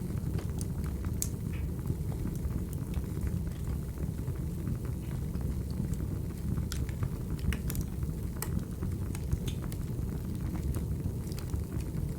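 Recorded wood fire crackling: a steady low rumble of flames with scattered sharp pops and snaps.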